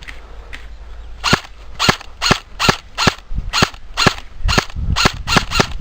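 Airsoft gun firing single shots in quick succession, about two to three a second, starting about a second and a half in, each a sharp crack.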